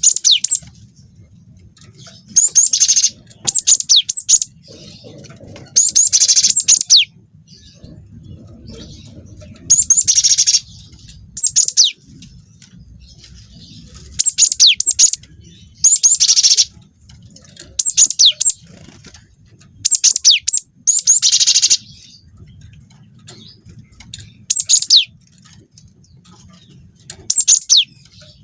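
Cinereous tit (gelatik batu) singing in repeated short bursts of quick, high, sweeping notes, about one to two seconds apart.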